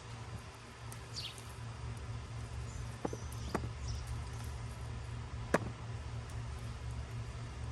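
A few sharp clicks or snaps, the loudest about five and a half seconds in, over a steady low hum, with a few faint high chirps like small birds.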